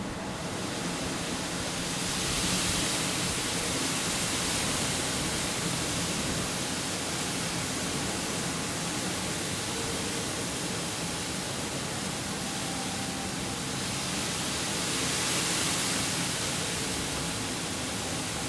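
Steady rushing wind, swelling in a gust a few seconds in and again about fifteen seconds in.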